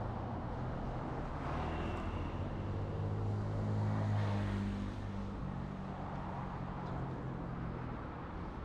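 A motor vehicle drives past with a low engine hum, growing louder to a peak about four seconds in and then fading, over steady road-traffic noise.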